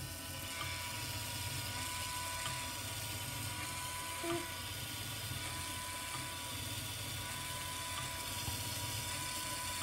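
LEGO Technic motor driving a plastic gear train in a Great Ball Contraption module, running with a steady whir and a thin, even whine.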